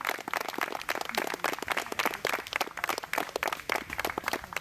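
A small audience applauding, its separate hand claps quick and irregular.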